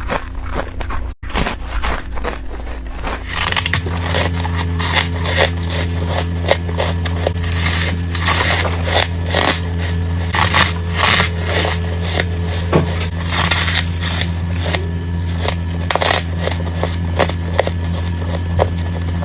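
Frost being bitten in quick succession close to the microphone: squeaky, crispy crunches following one another rapidly. A steady low hum sits underneath from a few seconds in.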